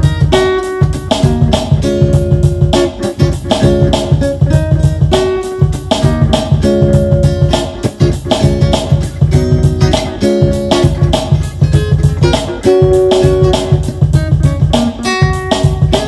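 Guitar vamping over a backing track with a steady drum beat and bass line; no singing in this stretch.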